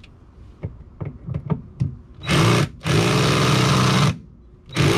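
Cordless drill driving at the screws of a seat pedestal's base plate on a fibreglass boat deck: a few light clicks, then the motor runs in three bursts, a short one, a longer steady run of about a second, and another starting near the end. The screws are set in 5200 adhesive sealant and are not coming out.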